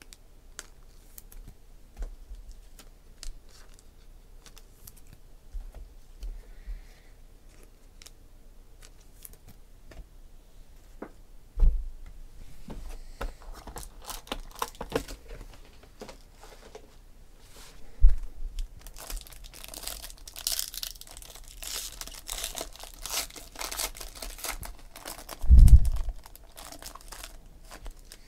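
Handling of a sealed trading-card box being opened: scattered light clicks and a few knocks from the cardboard box. In the last third, plastic wrapping crinkles and tears in a dense run, with a heavy thump near the end.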